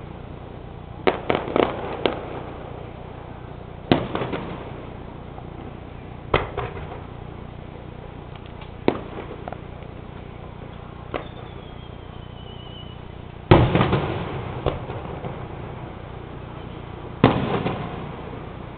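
Aerial firework shells bursting: sharp bangs every one to three seconds, some in quick clusters, each trailing off in crackle and rumble. The loudest comes a little past two-thirds of the way through.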